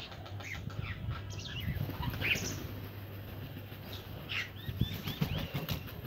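A mixed flock of crows and smaller birds calling and chirping in short harsh notes, with wing flaps as crows take off, over a low steady hum.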